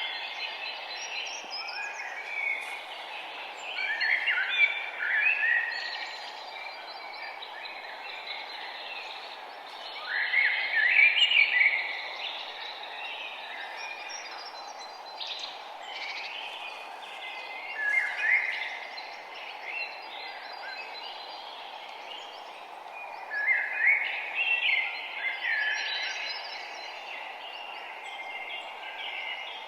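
Songbirds singing outdoors, with lively chirping phrases coming in bursts every few seconds, the loudest about ten to twelve seconds in, over a steady background hiss.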